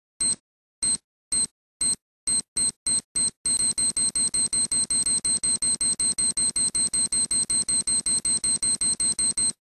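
Electronic alarm beeping, with short high-pitched beeps. The beeps come singly and unevenly at first, then settle about three and a half seconds in into a fast, even run of about five a second, which stops abruptly near the end.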